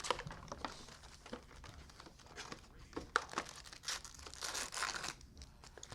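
Foil trading-card pack wrappers being crinkled and torn open by hand, with scattered clicks and rustles of cards being handled; the loudest stretch of crinkling comes near the end.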